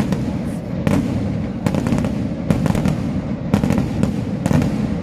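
Daytime aerial fireworks going off in a steady barrage: loud sharp bangs from bursting shells about once a second, over a continuous crackle of smaller reports and echoes.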